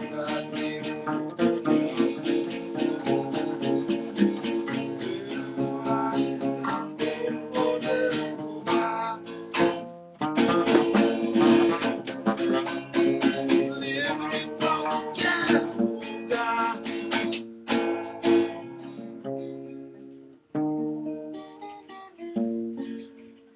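Acoustic guitar and acoustic bass guitar playing together, strummed chords over plucked bass notes. The playing breaks off briefly about ten seconds in and thins out to sparse notes near the end.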